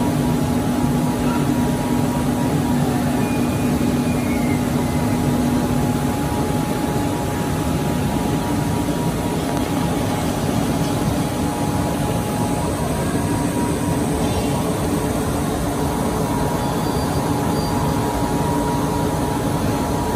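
Steady machinery din of a steel rolling mill, with its motors and roller tables running. Over it sit a constant low hum and a higher steady whine, and the low hum drops out about six seconds in.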